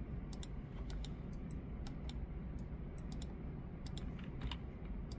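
Computer mouse and keyboard clicks, irregular and sharp, roughly three a second, over a steady low room hum.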